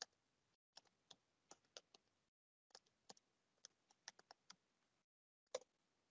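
Faint typing on a computer keyboard: irregular key clicks in three quick runs with short pauses between, and one sharper keystroke near the end.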